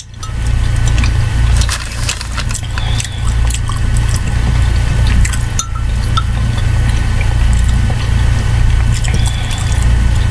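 A metal spoon stirring and scraping in a ceramic mug of soup, with liquid sloshing and many small clinks, over a steady low hum.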